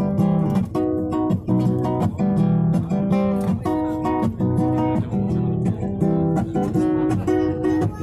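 Music: acoustic guitar strumming chords in a steady rhythm, about two strums a second.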